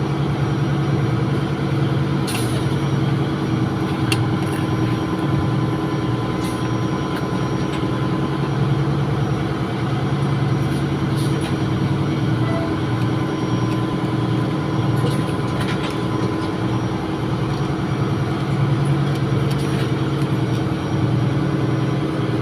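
Steady, loud drone of running ship's machinery, with a faint regular pulsing and a steady hum. A few brief light clicks break through it now and then.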